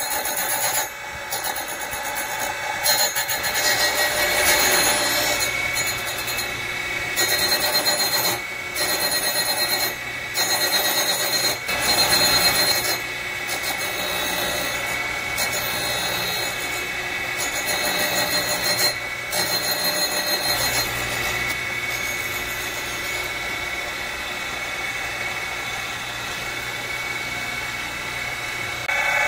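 Surface grinder's wheel grinding a magnetic parallel in repeated passes as the table reciprocates: a harsh, hissing grind that swells and drops every second or two, over the steady hum of the spinning wheel and the phase converter. The grinding passes stop about 20 seconds in, leaving the hum.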